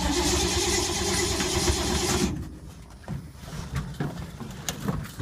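Starter motor cranking a 1952 Ford's engine, which does not catch, for about two and a half seconds before stopping abruptly. The owner thinks he has flooded the engine, which has sat unstarted for months. A few light knocks and clicks follow.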